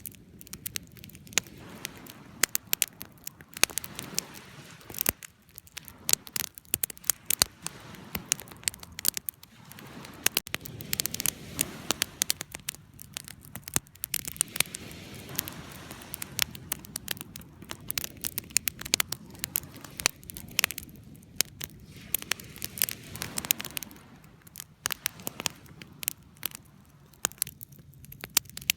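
Campfire burning with irregular sharp crackles and pops from the wood over a soft low rush of flame.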